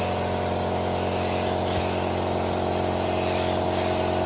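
Gravity-feed spray gun hissing steadily as it sprays finish, over a constant machine hum made of several fixed tones.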